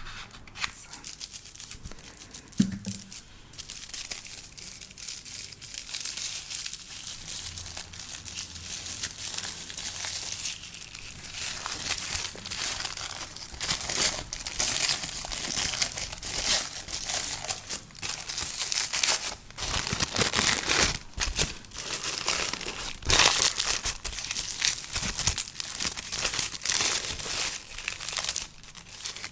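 Close-up crinkling and tearing of a makeup advent calendar's cardboard and packaging as its first door is opened, sparse at first and then busier and louder about halfway through.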